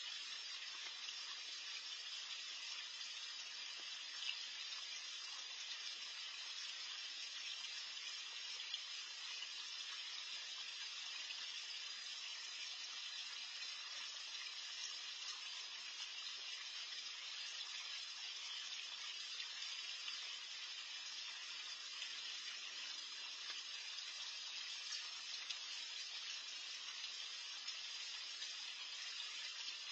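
Garden pond's water feature running steadily, an even wash of moving water.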